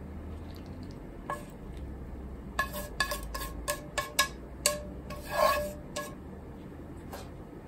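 Wooden chopsticks scraping food and sauce out of a pan onto a plate. A run of sharp knocks, each with a short ring from the pan, comes in the middle, then a longer scrape.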